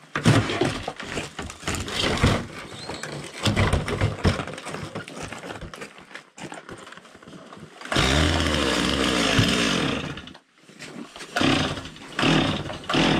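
Chainsaw running and cutting into wood, its sound uneven for several seconds. About eight seconds in it runs steadily at high speed for two seconds, then drops away sharply, and uneven cutting sounds resume near the end.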